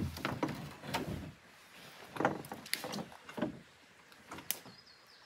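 A 14'6" solo canoe being hoisted onto a person's shoulders for a portage: the hull knocks and scrapes in two clusters of bumps and scuffs, then gives one sharp click about four and a half seconds in.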